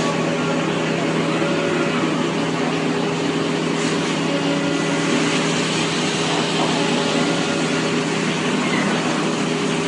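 Steady machinery noise of a running CNC machining cell: a constant low hum with a few steady tones over a dense hiss, without a break.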